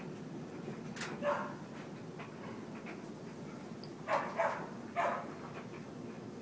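Puppies play-fighting, giving one short bark about a second in and a quick run of three barks around four to five seconds in.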